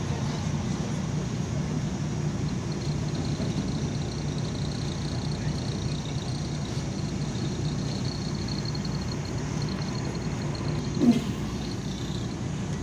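MAZ-103 city bus running, heard from inside the passenger cabin: steady engine and road rumble with a faint high whine. Near the end there is a short, louder chirp.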